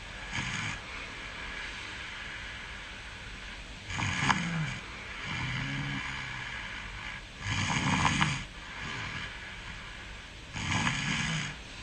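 A sleeping person snoring: a louder snore about every three seconds, with softer breathing sounds between, over a steady hiss.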